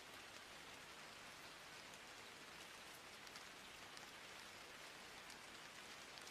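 Near silence: a faint, steady hiss, the noise floor of an old analogue recording, with no speech or music.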